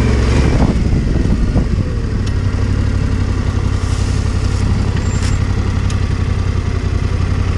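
Yamaha Ténéré 700's parallel-twin engine running at low, steady revs, settling to an even rumble about a second in.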